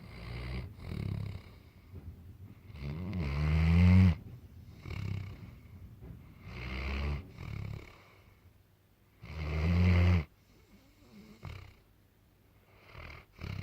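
A sleeping toddler snoring loudly: a low, rattling snore with each breath every few seconds, two of them much louder than the rest.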